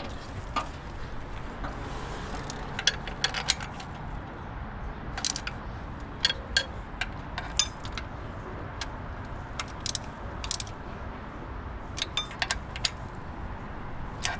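Scattered metallic clicks and clinks, singly and in short clusters, from a socket, extension and ratchet being worked on water pump bolts that are being run in hand-tight.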